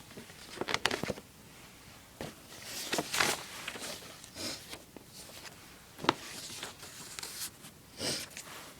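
Packaging being handled during an unboxing: paper and box rustling in scattered bursts, with a few sharp clicks and knocks.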